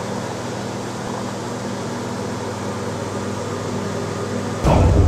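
Steady low machine hum with an even hiss, like a fan or air-conditioner room tone. Near the end, loud deep music comes in suddenly.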